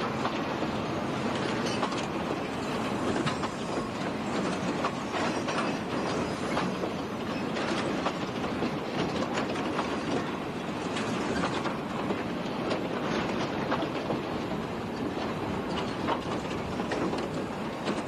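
Railway freight wagons rolling slowly through a station yard, wheels clicking and knocking irregularly over rail joints and points.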